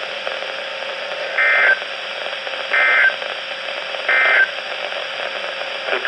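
Weather alert radio speaker playing the SAME end-of-message data code: three short, buzzy bursts about a second and a half apart, over steady radio hiss. The bursts mark the end of the tornado warning broadcast.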